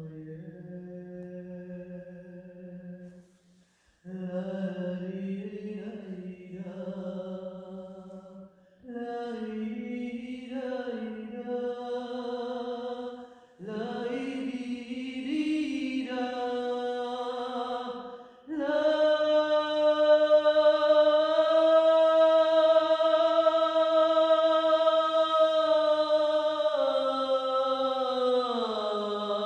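A single voice singing a wordless, improvised chant in slow phrases with short pauses between them. The last phrase is a long held note that slides down in pitch near the end.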